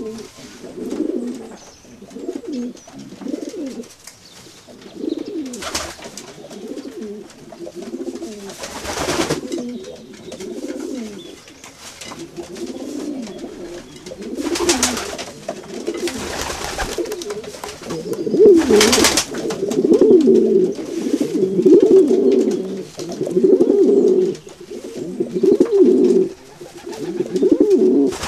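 A flock of rock pigeons cooing, one call after another and busier in the second half, with a few short whooshes in between.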